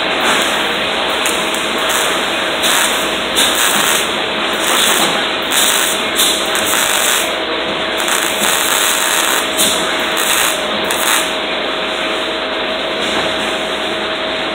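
Electric arc welding on steel plate, the arc sizzling and crackling steadily, with a stretch of stronger crackle in the middle. A steady hum runs underneath.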